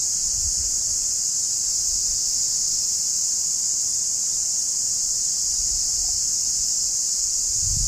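Forest insects chirping in a steady, high-pitched chorus.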